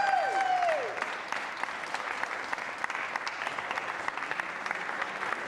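A crowd clapping. A held note at the end of a song drops away in pitch and fades in the first second.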